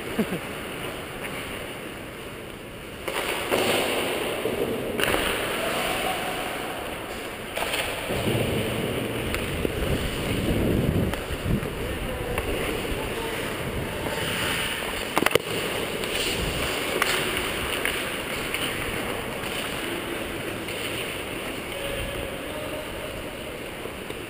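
Ice hockey rink sound picked up close to a skating player: skate blades scraping and cutting across the ice with a steady rushing noise, swelling a few times, and one sharp knock about fifteen seconds in.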